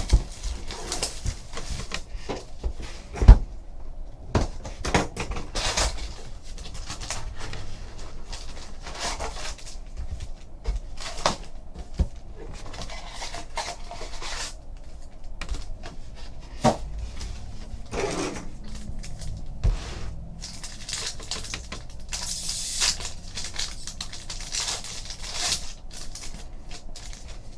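A trading-card hobby box and its packs being opened and handled on a table: scattered taps and knocks, with bursts of wrapper rustling, the longest about three-quarters of the way through.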